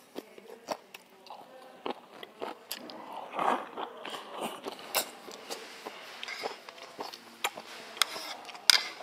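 Close-miked mouth sounds of eating: wet chewing and lip smacks as a series of short sharp clicks, with a longer sucking slurp about three and a half seconds in as a strip of steamed food is drawn into the mouth.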